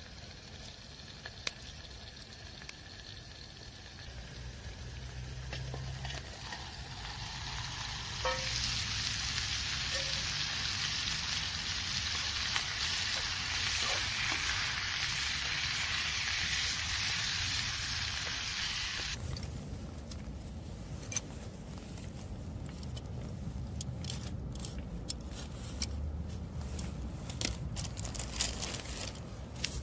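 Food sizzling in a pan. The sizzle grows louder about a quarter of the way in and stops abruptly about two-thirds through, leaving quieter scattered crackles and ticks.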